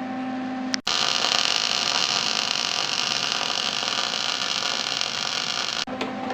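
Wire-feed (MIG) welding arc: a steady hiss that starts abruptly about a second in, holds evenly for about five seconds while a bead is laid, and cuts off sharply near the end.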